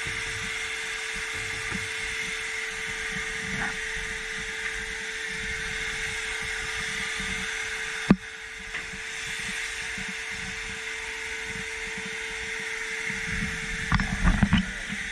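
Shop vac motor running steadily with a constant hiss and hum while it pulls lint and dust out of a dryer vent. There is a sharp click about halfway through and a few knocks near the end.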